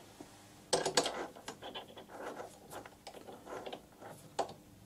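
Short round metal blank being fitted by hand into the jaws of a three-jaw lathe chuck, clicking and scraping metal on metal. A cluster of clicks comes about a second in, and a single sharper click near the end.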